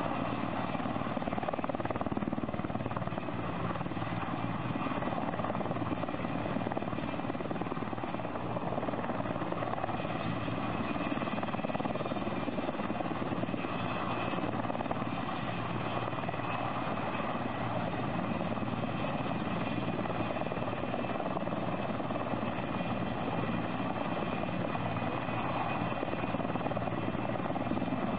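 Sikorsky S-64 Skycrane (Erickson Air-Crane) heavy-lift helicopter hovering low, its turbines and main rotor running steadily while it draws water up its snorkel hose to fill its firefighting tank. Rotor downwash blasts spray off the water.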